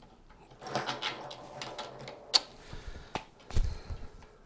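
Small metal printer-bed parts (springs and screws) being handled and fitted: a short rustle about a second in, then a few sharp clicks and a duller knock near the end.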